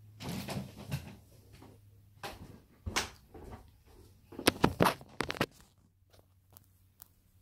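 Handling and movement noise: scattered knocks, bumps and clicks as the seat is left and the camera is picked up, with a quick cluster of sharp knocks about four and a half to five and a half seconds in.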